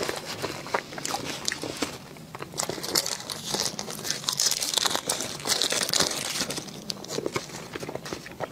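Clear plastic wrapper crinkling as a soft mochi dessert is handled and bitten close to a clip-on microphone, with soft mouth sounds of eating mixed in. The crinkling is densest in the middle of the stretch.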